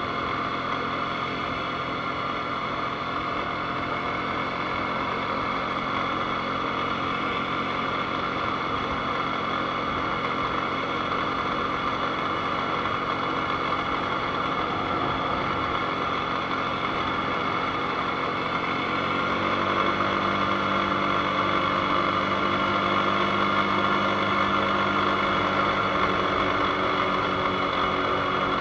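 ATV engine running at a steady note. About two-thirds of the way through, a deeper tone joins in and it gets a little louder.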